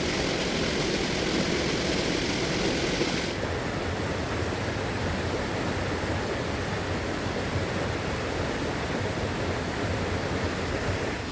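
Steady rush of a fast-flowing river. The higher hiss drops away abruptly about three seconds in.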